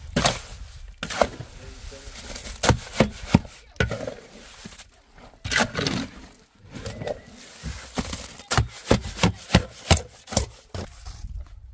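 A series of irregular sharp knocks and clacks, coming in a quicker run of about four or five a second near the end.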